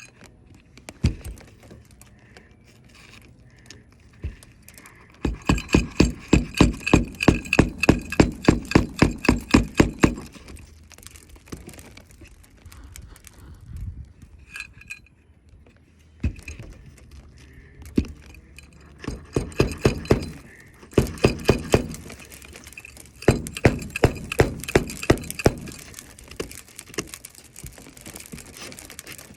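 Hammer driving roofing nails through an asphalt shingle: quick, even strikes at about four a second in a long run and then several shorter runs, with single knocks between.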